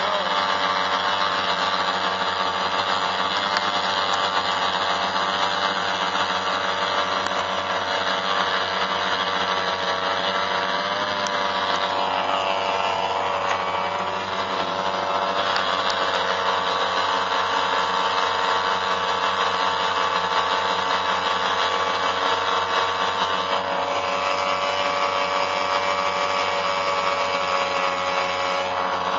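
Twin Gamefisher air-cooled two-stroke outboard motors running steadily at a constant speed, loud and buzzing like a small power tool.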